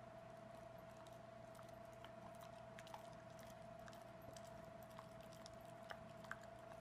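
Near silence: faint room tone with a steady hum and a thin steady tone, and a few faint scattered ticks.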